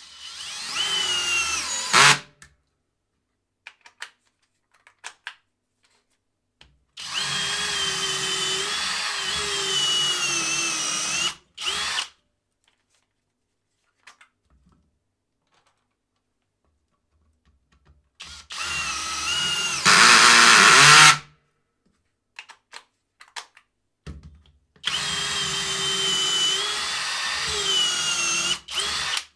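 Parkside Performance 12V cordless drill driver running in four short trigger bursts with quiet pauses between them. The motor whine wavers a little in pitch, and the third burst gets noticeably louder partway through.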